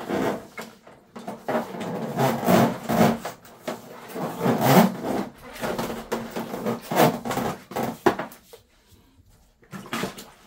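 Coiled steel drain-snake cable sections of a Ridgid K50 sectional machine rattling and scraping as they are handled and dragged over a wet concrete floor, in irregular bursts.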